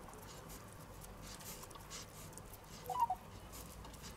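Faint squishing and patting of hands shaping minced beef into a ball, with one short, louder sound about three seconds in.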